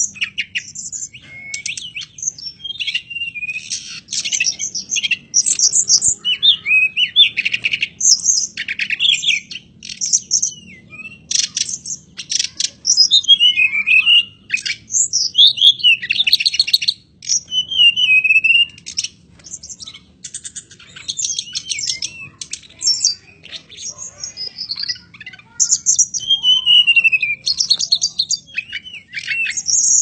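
Caged blue flycatcher (tledekan gunung) singing a long, varied song: rapid chattering trills mixed with whistled notes that slide up and down, in phrases broken by short pauses.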